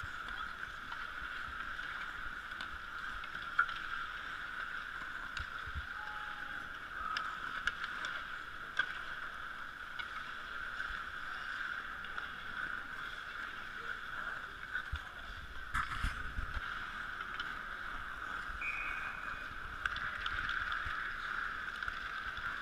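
Ice hockey play on the rink: a steady hiss of skates on the ice, broken by a few scattered sharp clacks of sticks and puck.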